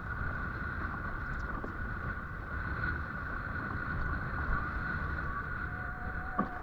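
A steady motor drone with a low rumble and a constant higher hum, with a short knock near the end.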